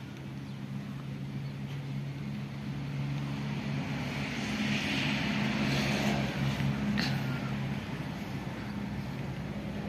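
A distant engine droning steadily, growing louder towards the middle and then easing off, with a single sharp click about seven seconds in.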